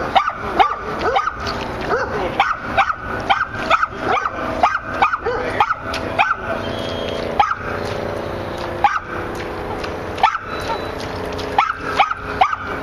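Short, sharp animal calls repeated two or three times a second without a break, with a steady hum beneath them for a few seconds in the middle.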